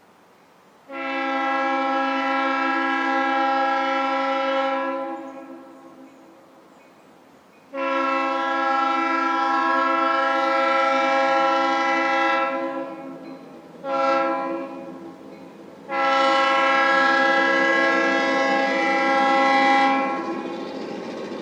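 EMD F7 diesel locomotive's air horn sounding a chord in four blasts, long, long, short, long: the standard grade-crossing signal. After the last blast a steady diesel engine noise carries on underneath.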